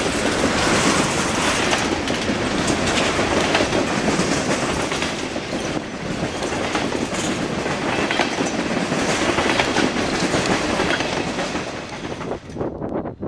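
Train cars rolling past close by, their wheels clacking over the rail joints. The sound drops away near the end as the train goes by.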